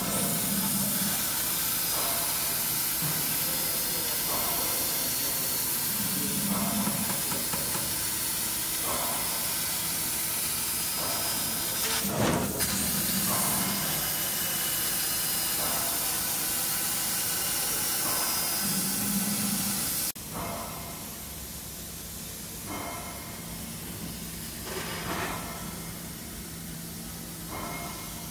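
2200 W fiber laser cutting machine cutting steel plate: a steady hiss of the cutting gas jet at the nozzle, with short ticks every couple of seconds and a louder crack about halfway. The hiss cuts off abruptly about two-thirds of the way through, leaving a quieter machine hum.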